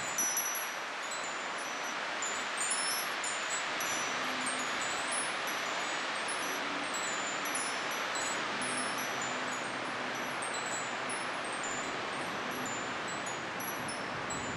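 Wind chimes tinkling irregularly with many short, high notes, over a steady rush of strong wind.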